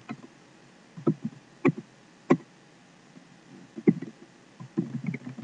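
Computer keyboard keystrokes: single key clicks spaced about a second apart, then a quicker run of clicks near the end, as a command is typed and entered at a terminal.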